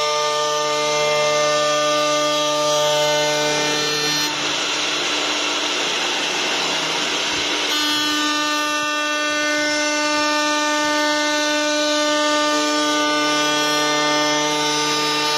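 Electric router spindles of a wood CNC lathe whining steadily as they cut spiral twists into square wooden blanks. From about four seconds in to about eight seconds in, a louder rough hiss of the cut takes over.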